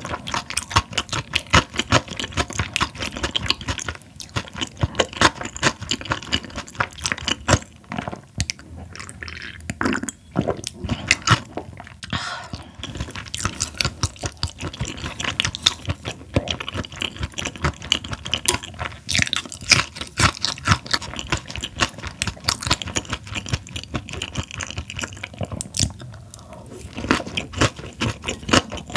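Close-miked chewing and crunching of raw Chinese herring and its dressed vegetable salad, a dense run of wet clicks and crunches with a few short lulls.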